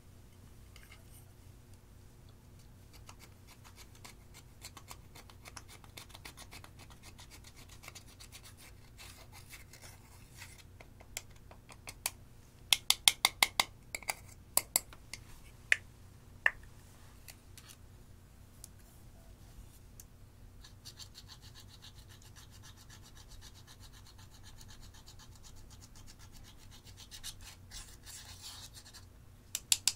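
Pressed eyeshadow being scraped and crumbled out of its plastic pans with a small metal tool: a light, steady scratching. A quick run of sharp clicks comes about halfway through, a brighter scraping starts about two-thirds in, and there are a few more sharp clicks near the end.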